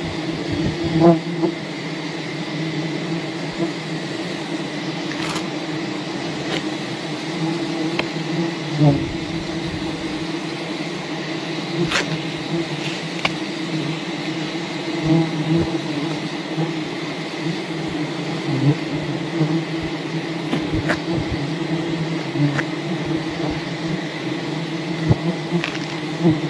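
A swarm of wild honeybees buzzing around their hive: a steady, wavering drone, with a few sharp clicks scattered through it.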